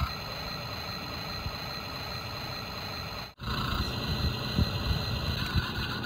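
KIZJORYA 1:20 battery-powered remote-control toy excavator running: a steady high electric whine over a rough low rumble. It cuts out for an instant about three seconds in, then resumes louder and rougher, with uneven low knocks.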